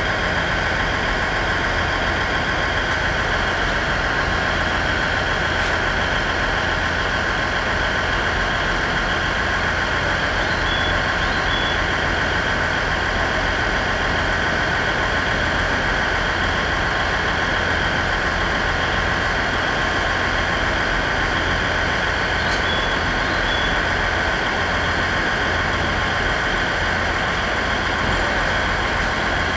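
JR 701 series electric train standing at the platform with its on-board equipment running: a steady low hum under a constant high-pitched whine.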